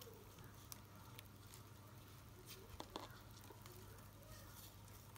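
Near silence with a few faint clicks and light handling noise: fingers pulling padding off a plastic cup of pebble substrate, the small pebbles ticking against the cup.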